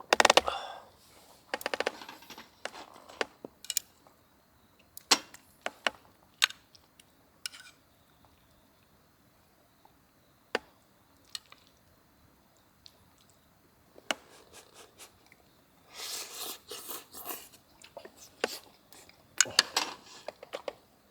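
Scattered clicks, taps and clinks of cookware and utensils being handled, with a rustling stretch about two-thirds of the way through and a short clatter near the end.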